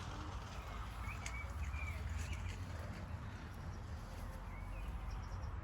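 Riverside ambience with a few short bird chirps over a steady low rumble.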